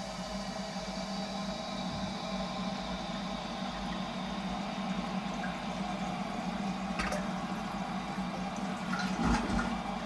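Household toilet cistern refilling after a flush: a steady hiss of water running through the fill valve with a low hum and faint whine. A knock about seven seconds in and a louder clunk near the end.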